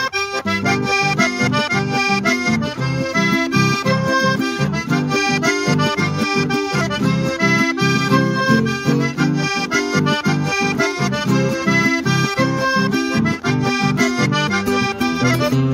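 Button accordion playing a lively chamamé tune: a running treble melody over regular bass-and-chord strokes.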